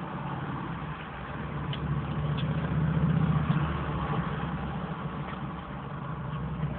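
Vehicle engine rumble heard from inside a parked car. It swells to a peak about three seconds in and then fades, as a vehicle passing close by would.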